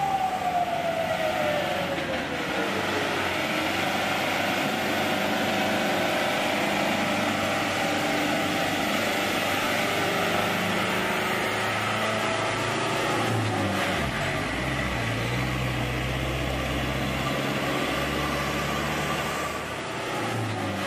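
Engine of a MAESA military artillery-towing truck running steadily, with a whine that falls in pitch over the first few seconds. The deep engine note changes about 14 seconds in.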